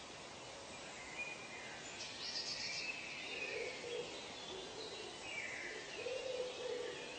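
Forest ambience with several birds calling over a steady hiss: high chirps and falling whistles come at intervals, and a lower call sounds about halfway through and again near the end.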